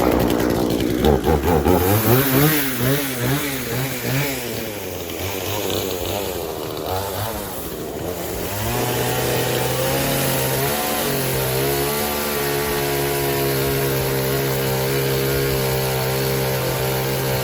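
Blue Max gas chainsaw's two-stroke engine running: revved up and down several times in the first few seconds, then held at a steady pitch for the second half before dropping away at the end.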